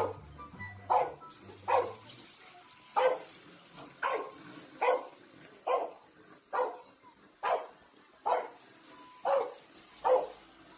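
A bulldog barking over and over, about one short bark a second, at a light-up toy race car running along its track.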